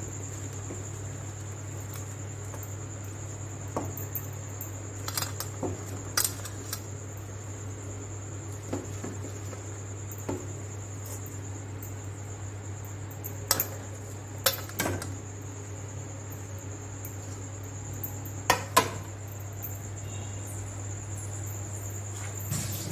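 A metal spoon clinking and scraping against a steel kadai in short scattered knocks as fried poori pieces are tossed in gravy, over a steady high-pitched whine and a low hum.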